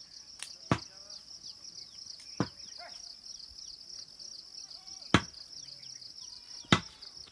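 A steady high-pitched insect chorus, shrilling with a fine pulse, broken by four sharp knocks spaced one to two and a half seconds apart, with a few faint chirps.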